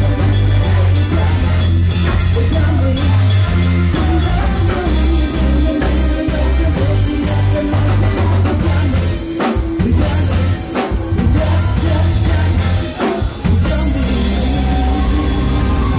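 Live rock band playing: electric bass guitar, keyboards and a drum kit, with a singer on a handheld microphone. The band breaks off briefly twice in the second half.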